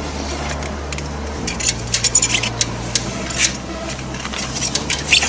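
Light clicks and rustles of a clincher tyre and inner tube being handled on a road-bike wheel rim, over a low steady hum.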